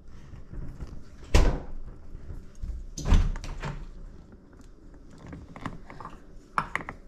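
Plastic knocks and handling of a vacuum jar-sealer attachment on a glass mason jar, with two loud thunks about a second and a half apart, then a few lighter clicks near the end as the hose fitting is pressed into place.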